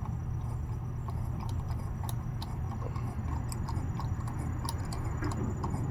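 Sparse, irregular light metallic clicks from a hand tool tightening the cover bolts on a QS138 motor, over a steady low hum.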